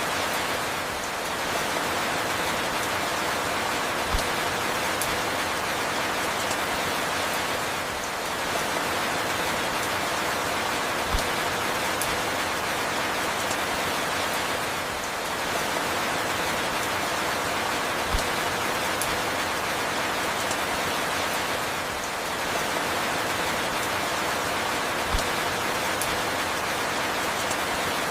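Steady rain falling, an even hiss with scattered faint drop ticks. A faint low thud and a slight dip in the rain recur about every seven seconds, as in a looped rain recording.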